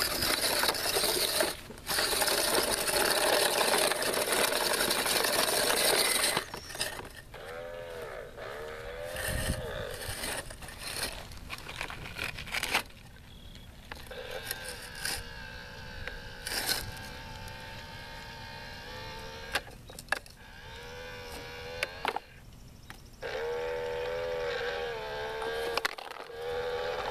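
Tonka Mighty Motorized Garbage Truck toy's motorized front lift arm running in several separate spells, its small motor and gears whining with a wavering, bending pitch as the arm works a dumpster up over the cab into the hopper. A loud rushing noise fills the first six seconds.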